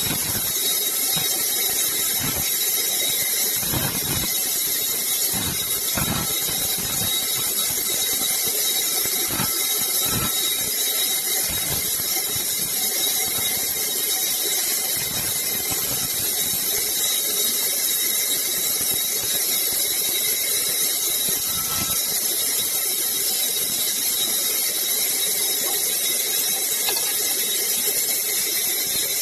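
Sawmill saw running and cutting wood: a steady high-pitched hiss and whine, with a few knocks in the first ten seconds.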